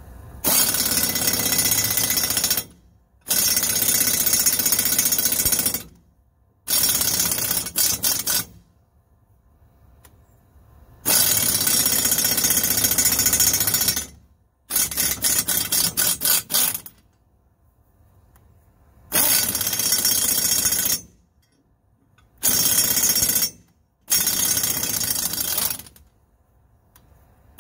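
Impact wrench hammering in about eight bursts of one to three seconds each, with short pauses between, running exhaust studs into a cast-iron exhaust manifold whose threads are binding.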